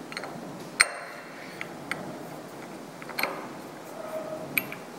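Brass gear and small metal parts being handled and seated in a height gage's dial housing: a few light, sharp clicks and taps, the loudest about a second in, others around two and three seconds in and near the end.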